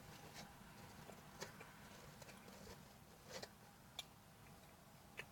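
Near silence inside a parked car: faint steady hiss with a handful of small, sharp clicks scattered through it.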